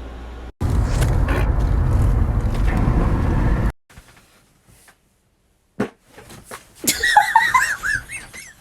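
A long, loud, low fart with a rapid flutter, lasting about three seconds and cut off suddenly. Near the end, high-pitched laughter.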